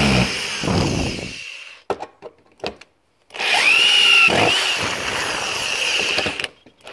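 Electric drill with a screwdriver bit driving wood screws into a plywood jig base, its motor whine rising and falling in pitch as the screw bites. One run stops about a second and a half in, a few light clicks follow, then a second run of about three seconds, and another starts at the very end.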